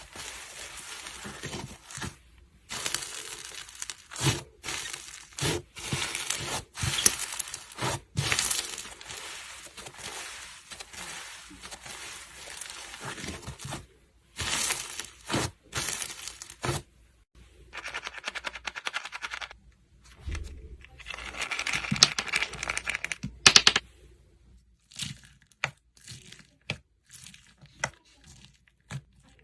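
Slime being squeezed and worked by hand, giving dense crackling and popping in spells of a second or two, broken by short pauses.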